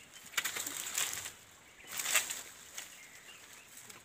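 Leaves and twigs of a sweet lime tree rustling in several short bursts, the loudest about two seconds in, as someone moves among the branches.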